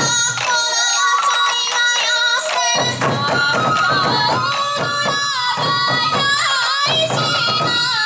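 Sansa odori festival music: a troupe of hand-held taiko drums beating in rhythm under a high, held melody from bamboo flute and voices.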